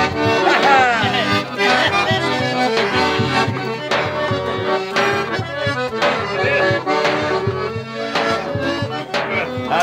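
Piano accordion playing an instrumental forró pé de serra tune, held chords under a melody line, with regular drum strokes from a zabumba bass drum.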